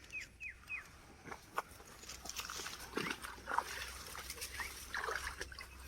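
A few short falling animal chirps in quick succession in the first second, then irregular splashing and swishing of someone wading through shallow water.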